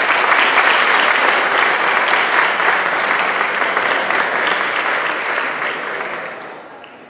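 Audience applauding with a dense patter of many hands clapping, fading out over the last second.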